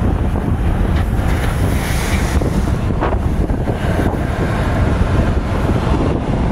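Strong wind buffeting the microphone on a tugboat's deck, with choppy sea water rushing along the hull as the tug moves ahead; a few brief gusts stand out, about one, three and four seconds in.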